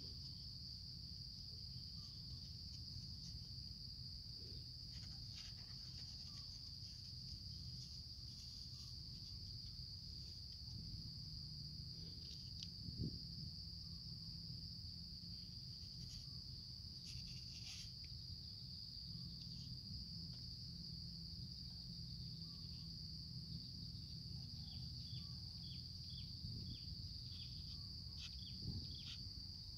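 Steady high-pitched drone of insects, with a low rumble beneath. A few small handling clicks and taps come through, the sharpest about thirteen seconds in, and near the end there is a run of short, quick chirps.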